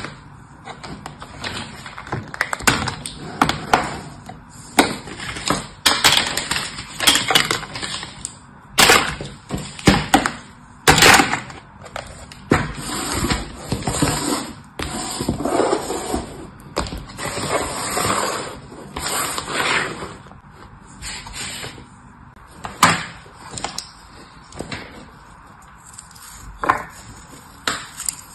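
Hands handling kinetic sand and plastic toy sand molds: irregular crunches and crumbling of the sand, with sharp plastic taps and knocks as the molds and cutters are pressed and set down.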